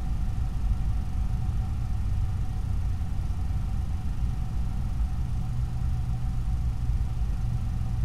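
Steady low rumble with a thin, unchanging whine and faint hiss: the background noise picked up by a night-vision trail camera's built-in microphone, with no sound from the fox itself.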